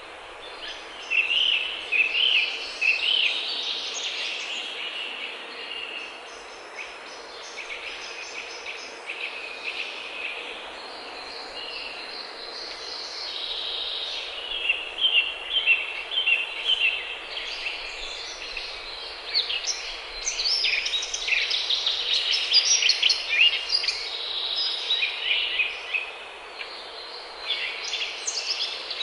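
Forest songbirds singing: many quick chirps and trills overlapping, getting louder and busier about two-thirds of the way through.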